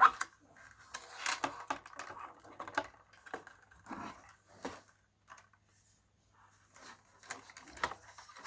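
Handling of a plastic radio casing and its removed speaker: irregular clicks, knocks and rattles, with a sharp knock at the start and a short quiet pause about midway.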